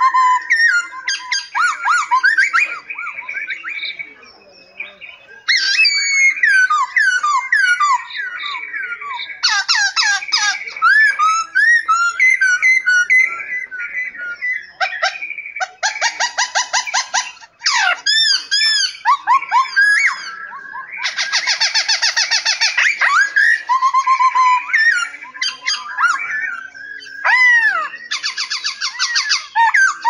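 Many aviary songbirds calling and singing over one another: clear whistles that rise and fall, chirps, and several fast rattling trills, with a short lull about four seconds in.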